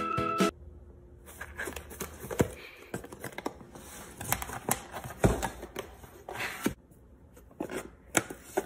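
A cat scrabbling and batting inside a cardboard tissue box, its claws making scattered scratches and sharp taps on the cardboard, with a pencil poking in at the other end. A short jingle ends about half a second in.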